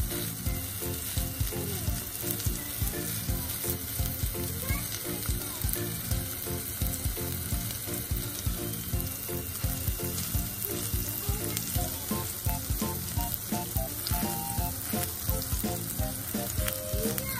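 Chicken SPAM mini burger patties sizzling steadily as they fry in oil in a non-stick frying pan.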